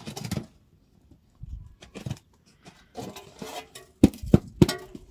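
Scattered handling clatter, with three sharp knocks in quick succession near the end.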